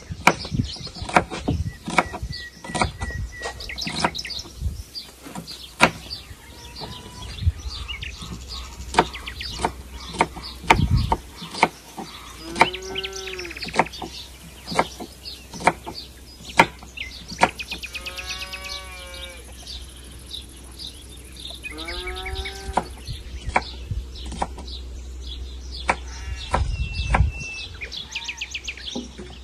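Kitchen knife slicing an onion on a wooden cutting board, the blade tapping sharply on the board over and over. Birds chirp throughout, and three drawn-out bleating calls come around the middle.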